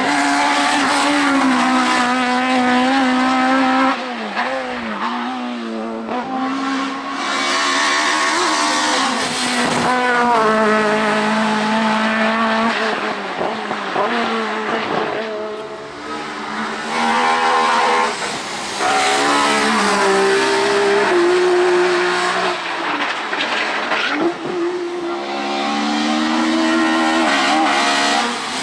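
Racing car engines running hard up a hill climb course, revving up and dropping back again and again through gear changes. Several cars are heard in turn, the sound changing abruptly about 4 seconds in, again about 18 seconds in, and near the end.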